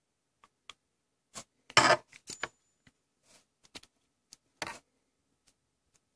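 Scattered small clicks and taps from a Badger 360 Universal airbrush being handled and its rear handle worked off, metal and plastic parts knocking together. The loudest brief clatter comes about two seconds in, with another just before five seconds.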